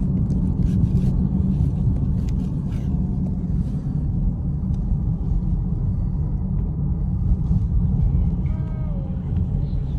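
Steady low rumble of a car driving along, road and tyre noise heard from inside the cabin. Faint music with plucked notes comes in near the end.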